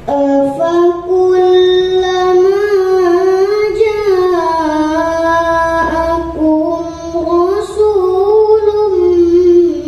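A young girl's melodic Quran recitation (tilawah) in maqam Hijaz, sung into a handheld microphone. Long held notes move up and down in small ornamented steps.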